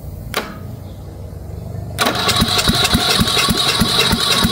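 A sharp snap as the jumper cable clamp meets the starter terminal. About two seconds in, the starter motor of a 19.5 hp Briggs & Stratton engine starts cranking it over: a steady whine with rhythmic compression pulses about five a second, the engine not firing while it draws up fuel.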